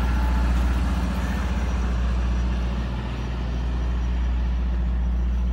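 Parked soft-serve ice cream truck idling, a steady low engine drone.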